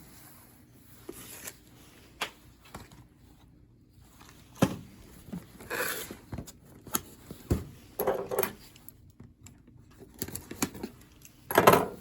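Packaging being handled and torn open to take out a new engine part: irregular rustling and crinkling with scattered clicks and knocks, the loudest rustle just before the end.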